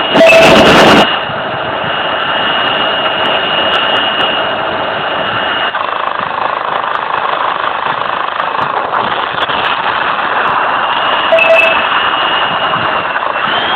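F-16 fighter's jet engine running: a steady rushing roar with a high whine held for several seconds, and a much louder blast of noise lasting about a second just after the start.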